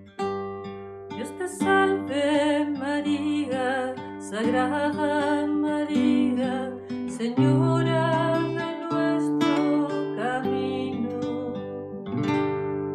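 Acoustic guitar playing the instrumental close of a Spanish Marian hymn, sustained chords under a melody with vibrato; the last chord rings and begins to fade near the end.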